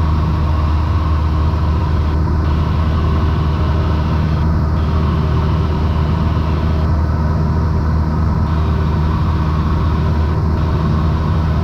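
Cessna 172 Skyhawk's piston engine and propeller droning steadily in flight, a loud, even, low hum with no change in pitch.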